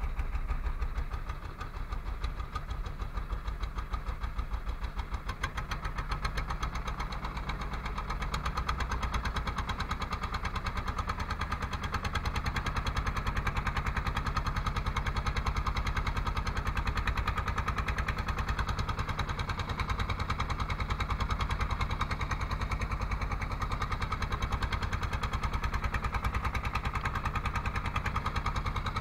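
Wooden fishing boat's engine running steadily under way, with a rapid, even beat.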